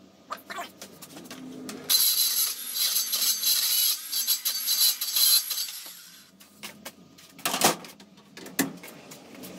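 Handheld circular saw with its blade set shallow, running and cutting a notch across a composite decking board for about four seconds, starting about two seconds in. Two sharp knocks follow near the end.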